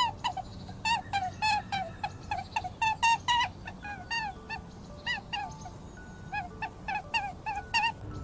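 A quick series of short, pitched animal calls, each dipping in pitch, coming several a second in runs with short gaps between them.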